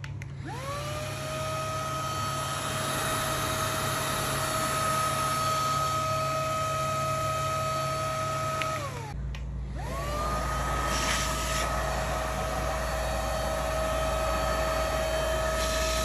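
Princess P3000 cordless stick vacuum's motor switched on, spinning up to a steady high whine over the rush of airflow. About nine seconds in it winds down and stops, then spins up again and runs steadily.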